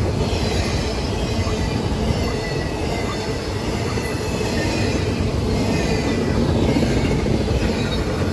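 Norfolk Southern freight train cars rolling past: a steady rumble of steel wheels on rail, with faint high-pitched wheel squeal coming and going.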